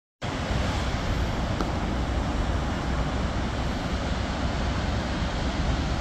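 Steady roar of the Paterson Great Falls of the Passaic River running high after a storm, water pouring over the falls and churning in the gorge below, with wind buffeting the microphone in a low, fluttering rumble.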